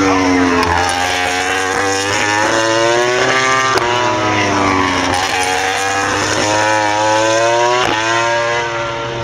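Racing motorcycle engines revving on a circuit, loud, the pitch rising and falling several times as they accelerate and shift, over a steady low hum.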